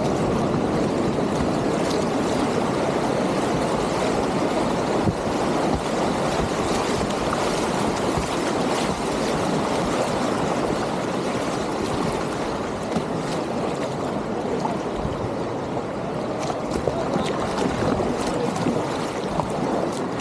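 Whitewater river rapids rushing steadily around a kayak running them, with a few faint knocks and a brief louder one about five seconds in.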